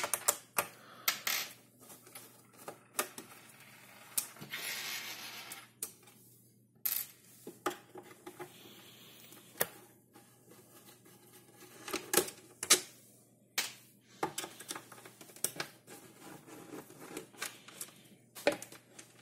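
Screwdriver working the case screws out of a Philips N4308 reel-to-reel tape recorder: scattered metallic clicks and taps, with a longer scraping sound about four to six seconds in.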